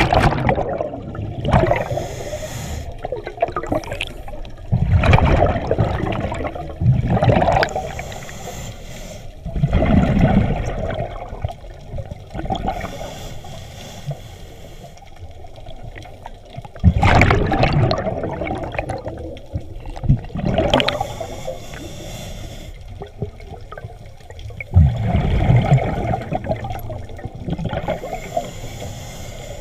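Scuba regulator breathing, heard underwater: bursts of exhaled bubbles gurgle out every few seconds, with a fainter hiss of inhaling between them.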